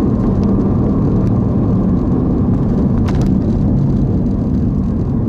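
Vehicle engine and road noise heard from inside the cab, a steady low drone.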